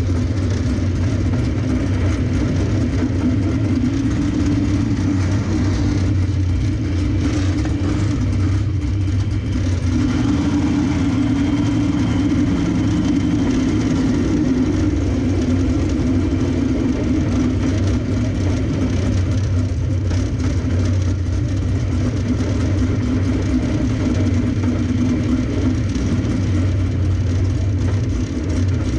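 Dirt-track race car's engine running steadily at low revs, heard from inside the cockpit as the car rolls along at low speed.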